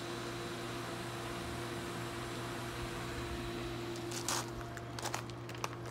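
Pool pump motor and filter equipment running with a steady electric hum. About four seconds in and near the end, a few crunching footsteps on gravel.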